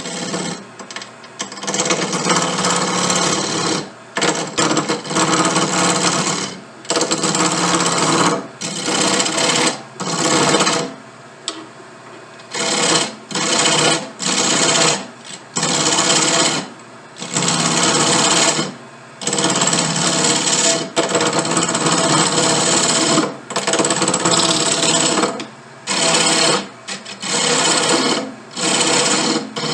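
Power tool shaping a briar pipe bowl: the motor hums steadily, and the noise swells into a loud grinding each time the wood is pressed against it. The passes come in repeated bursts of one to two seconds with short pauses between them.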